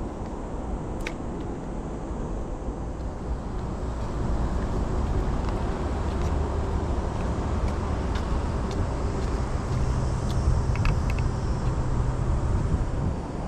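Steady low outdoor rumble that grows louder about four seconds in, with a low hum joining near the end and a few faint ticks.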